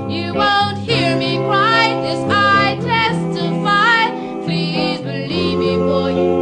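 Background music: a song with a singing voice over sustained instrumental accompaniment.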